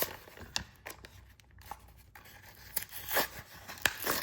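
Handling of a boxed diecast car's packaging: scattered rustles, scrapes and light clicks, with a louder scrape about three seconds in and another near the end.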